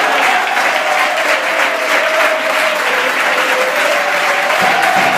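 Football stadium crowd applauding its team, a dense, steady wash of clapping, with a held, wavering tone running through it.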